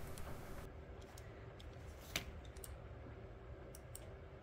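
Faint, scattered clicks and taps of hands handling a 3D-printed plastic assembly, with one sharper click about two seconds in.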